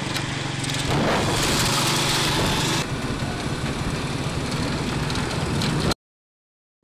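Motorcycle tricycle's small engine running steadily while riding, under rushing wind and road noise that swells for a couple of seconds about a second in. The sound cuts off abruptly about six seconds in.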